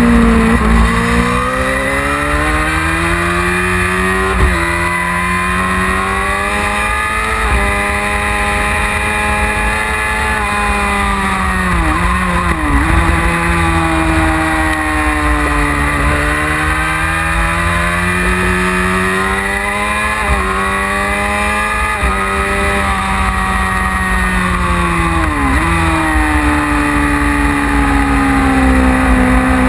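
1999 Yamaha R6's 600 cc inline-four engine at racing revs, pitch climbing and falling through the gears with brief breaks at each gear change. A constant low wind rumble runs underneath.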